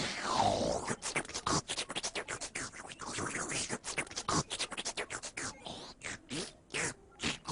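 A rapid string of short clicks and scratchy noises with quick sweeping glides in pitch, in the manner of beatboxing or scratching.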